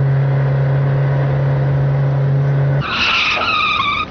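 Cartoon car sound effects: a car engine holds a steady low drone, which cuts off almost three seconds in. A high, wavering tyre screech follows as the car swerves.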